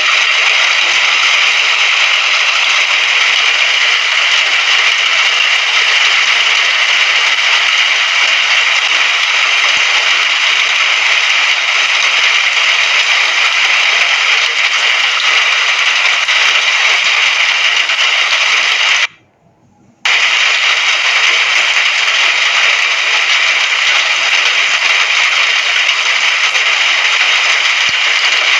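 Steady, loud hiss of rainfall with a fine crackle. About two-thirds of the way through it cuts out suddenly for about a second, then resumes unchanged.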